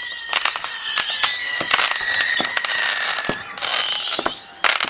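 Fireworks going off: a dense run of sharp pops and crackling. A steady high whistle sounds through the first three seconds or so.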